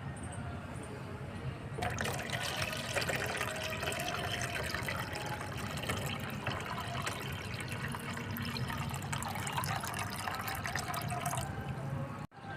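Water pouring and splashing into a container, starting about two seconds in and stopping shortly before the end.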